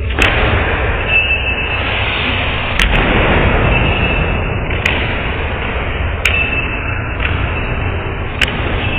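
Five sharp, very short knocks, irregularly spaced a second or two apart, over a steady noisy rumble.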